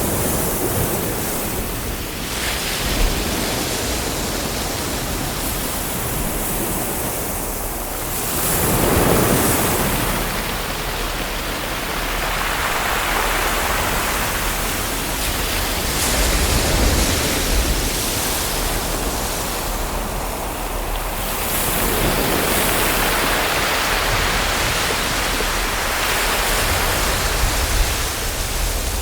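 Ocean waves washing in over a steady hiss of surf, each wave swelling and ebbing every four to five seconds.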